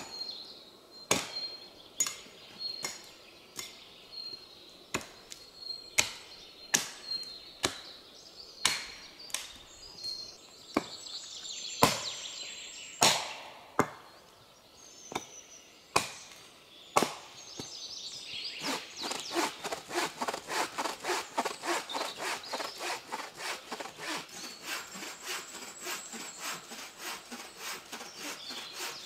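Sharp wooden knocks of dead wood being chopped, about one a second, for the first half. Then a bow saw cutting through a fallen birch log in quick, even strokes, about three a second.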